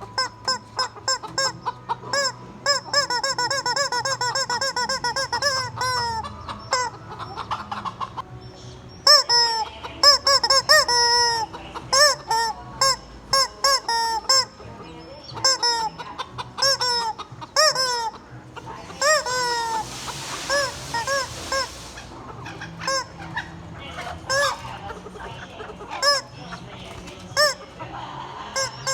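Chickens clucking and squawking over and over, mixed with honking squeaks from a squeezed rubber chicken toy. A fast, even run of calls comes early, and a longer breathy noise follows about two-thirds of the way through.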